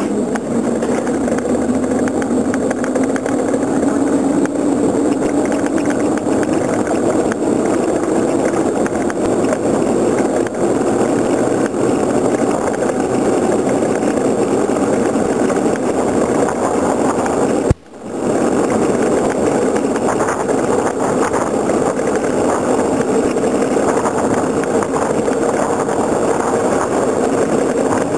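Wooden soapbox car rolling fast downhill on asphalt, heard from its onboard camera: a steady rumble of wheels and rushing wind, with a hum that rises slowly as the car gathers speed. The sound cuts out for a moment about two-thirds of the way through.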